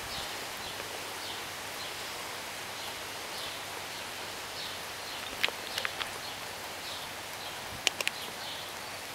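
A dog nosing and mouthing a small rubber ball among dry pine needles: a steady rustle, with a few sharp clicks as the ball is caught in its teeth, about halfway through and again near the end.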